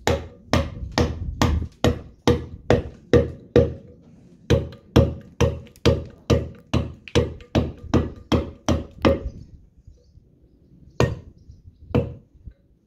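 Mallet striking a steel chisel cutting into stone, roughing out carved lettering: sharp knocks in a steady rhythm of about two a second. The blows stop about nine seconds in, then come twice more, singly.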